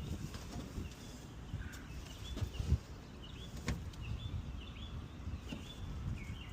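Small birds chirping faintly over a low outdoor background rumble, with a few light knocks, the sharpest about halfway through.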